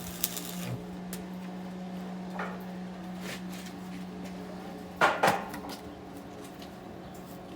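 Metal clanks and knocks from steel parts and tools being handled, the loudest a sharp double clank about five seconds in, over a steady low hum.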